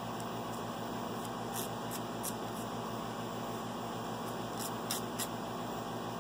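Nail file rasping against a long toenail in short quick strokes, two runs of three or four strokes, as the nail is filed to a sharp point. A steady low electrical hum runs underneath.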